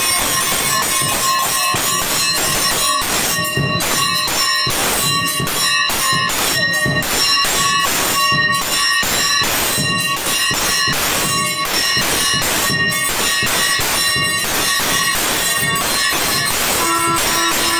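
Brass temple bells ringing continuously during the puja, struck rapidly several times a second, their ringing tones held steady underneath.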